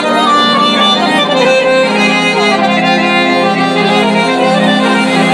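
A song playing at full volume from an Amazon Basics 16 W Bluetooth soundbar, fed by aux cable.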